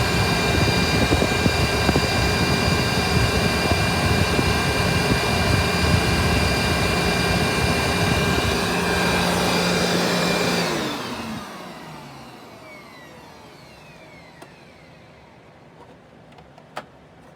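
Vacuum cleaner running steadily with a whine and hum, switched off about two-thirds of the way through; its whine falls in pitch as the motor spins down, and a single click comes near the end.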